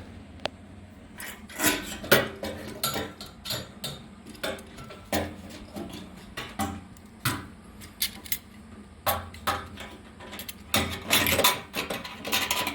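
Irregular metallic clinks and knocks of metal parts and tools being handled, with a busier flurry of clatter about eleven seconds in.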